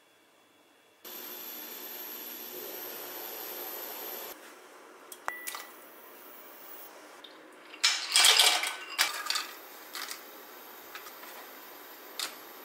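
Kitchen handling sounds: a spoon clicking and scraping against a pot of broth as soybean paste is stirred in, with one loud burst of clatter about two-thirds of the way through. Before it, a few seconds of steady hiss.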